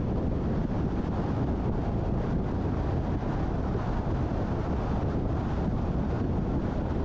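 Steady wind and road rumble of a car being driven along a highway, a constant low-heavy rush with no distinct engine note.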